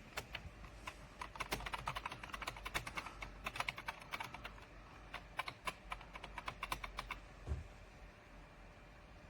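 Typing on a computer keyboard: a quick, uneven run of key clicks that stops about seven seconds in, followed by one low thump.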